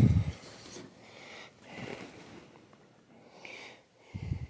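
Heavy firefighter turnout coats being pushed along a locker rack by hand: scattered fabric rustles and handling noise, with a dull bump near the end.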